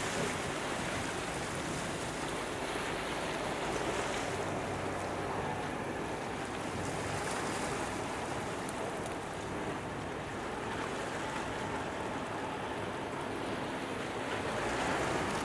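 Steady waterfront ambience of wind and washing water, an even rushing noise that swells slightly near the end.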